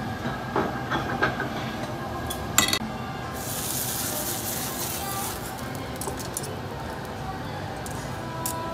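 Tabletop yakiniku grill flaring up: a sharp click about two and a half seconds in, then a rushing hiss of flame through the bare grate for about three seconds. Light clinks of tableware and tongs around it.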